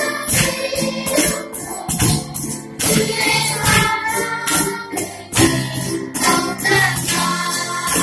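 A group of children singing a song live, accompanied by a steady hand-percussion beat and guitars.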